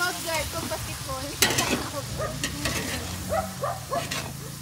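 Diced aromatics sizzling in oil in a large metal wok while a metal spatula stirs them, with several sharp scrapes of the spatula against the pan.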